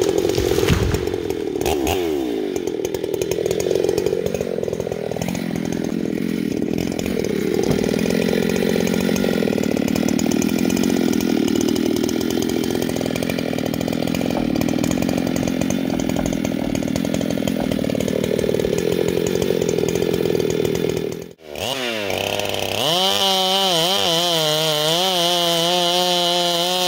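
A Husqvarna 395 XP two-stroke chainsaw runs hard while cutting firewood, its engine pitch sagging and recovering as the chain bites into the log. After about 21 seconds the saw sound cuts off abruptly and music with held, wavering notes takes over.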